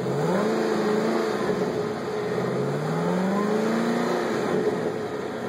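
2013 Chevrolet Camaro ZL1's supercharged 6.2-litre V8 revved twice in neutral. The pitch climbs on each rev and drops back to a steady run between them.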